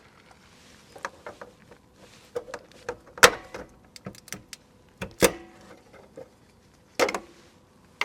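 A hand tool prying fasteners out of a propane regulator cover: a series of irregular sharp clicks and knocks, the loudest about three and five seconds in.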